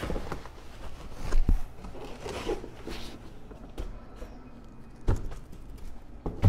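Plastic wrapping crinkling and a cardboard box bumping and scraping as a plastic-wrapped seat is handled and lifted out of the box. Several sharp knocks break the rustling, the loudest about a second and a half in and at the very end.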